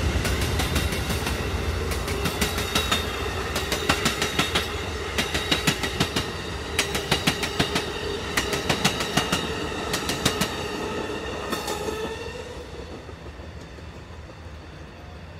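Amtrak passenger cars rolling past, their wheels clicking over rail joints in quick groups over a steady rumble. The clicking fades out about twelve seconds in as the end of the train moves away.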